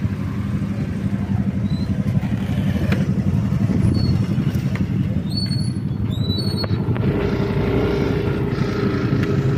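Motorcycle engines running steadily at low speed, with road and wind noise; another engine note joins about seven seconds in.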